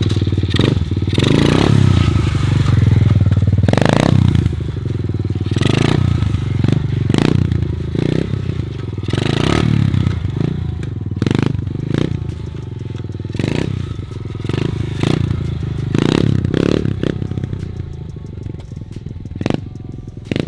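A 110cc pit bike with an FMF exhaust being ridden and revved, the engine note surging up and down with the throttle. It gets fainter near the end as the bike rides away.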